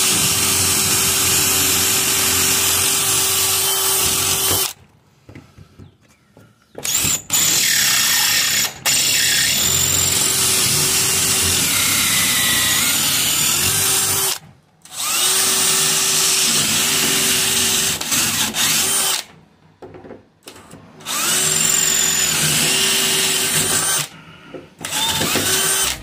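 DeWalt cordless drill boring holes through a wooden door via a metal drill-guide jig. It runs at steady speed in several runs of a few seconds each, stopping briefly between them.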